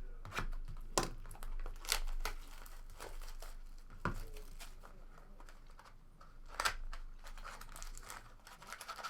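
Trading card pack wrappers being torn open and crinkled by hand, with a run of sharp crackles and rustling as packs and cards are handled.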